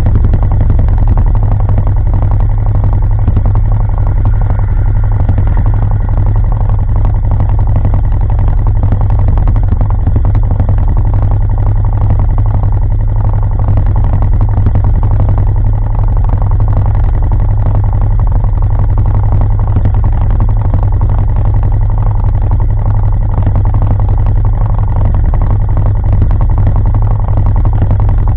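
ATV engine idling steadily, a loud low rumble that holds the same speed throughout.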